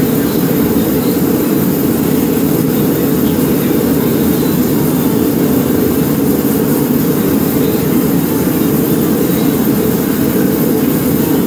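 A steady, loud low roar of noise that holds unchanged throughout.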